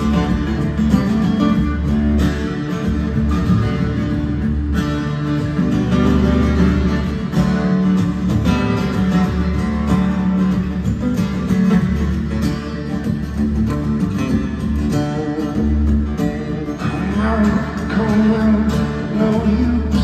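Two acoustic guitars playing a song together, continuous and steady.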